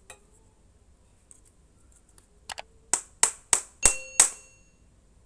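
Small metal parts clicking and tapping together in the hands. Two faint clicks come about halfway through, then five sharp taps about a third of a second apart; the last two leave a short metallic ring.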